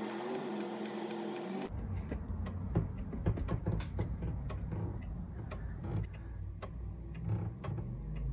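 Amiga floppy drives reading and writing during a disk copy: a low rumble with many irregular sharp clicks from the heads stepping track to track. The first second and a half is sped up fourfold and sounds like a steady hum of held tones.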